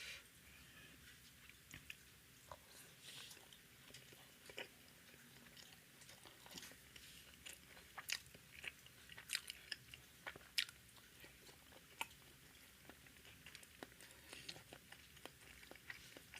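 A person chewing and biting tandoori roti and naan with masala egg curry, close up: quiet, irregular wet mouth clicks and small crunches.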